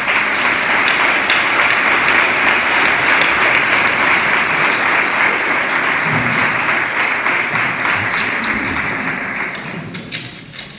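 Congregation applauding steadily, dying away near the end.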